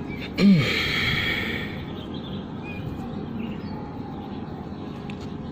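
A man sighs about half a second in: a short voiced sound falling in pitch, trailing into a breathy exhale of about a second and a half. Steady background hiss follows.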